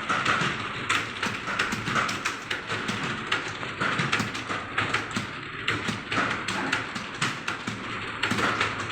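Fast, continuous typing on a computer keyboard: a steady stream of key clicks, many a second.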